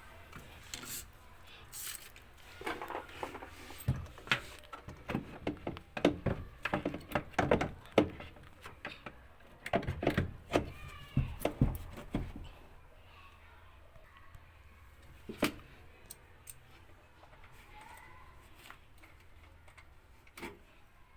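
Irregular knocks, clicks and light metal clatter from parts and tools being handled during a washing machine drive motor repair. The clatter comes thick and fast for the first half or so, then there is a single knock and it goes quiet.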